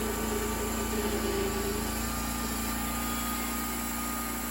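Homemade sawmill's engine running steadily at an even pitch.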